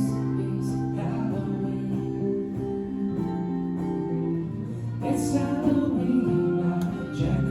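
A rock band playing a song live: guitar over low held notes that change every second or two, with a voice singing.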